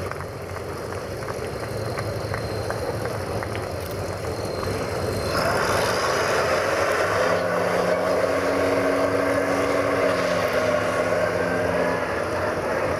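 Fiat-Allis 645B wheel loader's diesel engine running. It grows louder about five seconds in as the loader moves off and turns, holding a steady drone.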